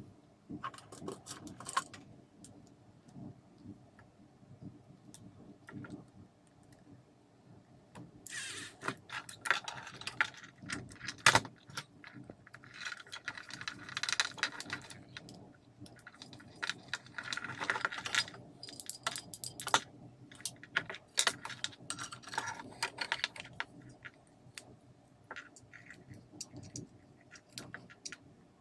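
Irregular small clicks, clinks and rattles of small hard parts and hand tools being handled during disassembly work, busiest through the middle stretch.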